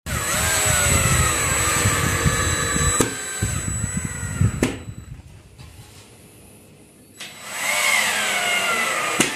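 Cordless drill-driver driving screws into a wall: the motor whine falls in pitch as each screw bites in. A first long run lasts about four and a half seconds with a couple of clicks, then a short second run comes near the end.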